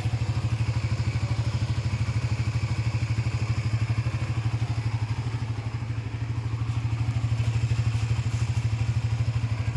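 Suzuki GSX-R motorcycle engine idling with a steady, even pulse. It is a factory-sealed, never-opened engine that runs smoothly.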